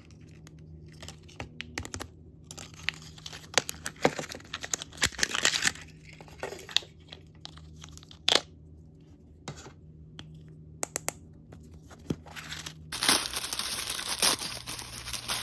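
L.O.L. Surprise Color Change blind-pack packaging being torn, crinkled and unwrapped by hand, in a rapid series of crackles and clicks from plastic wrapping and the plastic capsule. Near the end a dense, steady crinkling sets in as a crinkly wrapper is peeled open.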